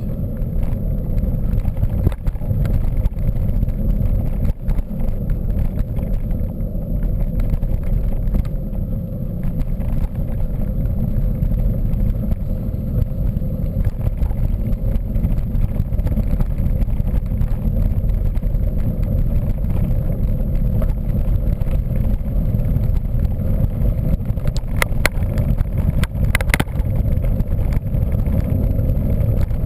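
Mountain bike being ridden, heard as a steady heavy rumble of wind on the microphone and riding noise, with a few sharp rattles near the end.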